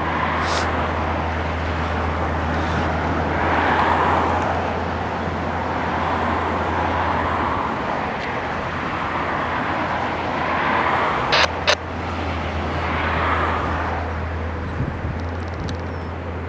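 Steady vehicle rumble with a low hum and slow swells every couple of seconds, broken by two sharp clicks about eleven seconds in.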